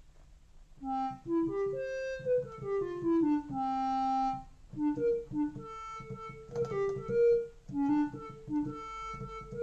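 Behringer Crave monophonic analog synthesizer playing a melody one note at a time. Its square-wave oscillator runs through a slightly closed filter, patched to imitate a clarinet.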